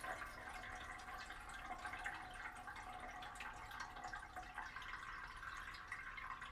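Faint, steady trickle of running water as a Toto one-piece toilet refills after a flush through its newly fitted fill valve; it sounds like someone's peeing.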